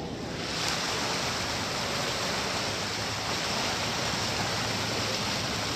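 Steady rushing noise of wind and water aboard a moving passenger boat at sea.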